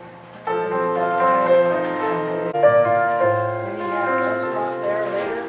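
Slow piano music, held chords struck anew about half a second in and again midway.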